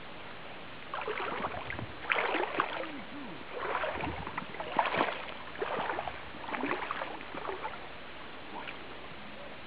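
Water splashing in a series of irregular bursts, with a few sharper slaps, for about seven seconds.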